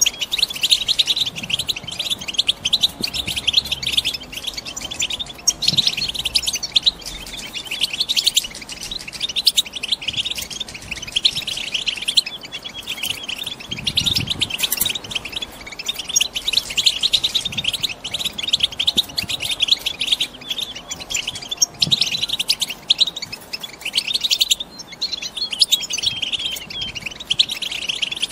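European goldfinches twittering without pause: quick, dense chirps with only a few brief lulls. It is the excited chattering of hen goldfinches in breeding condition, used to set a caged male singing.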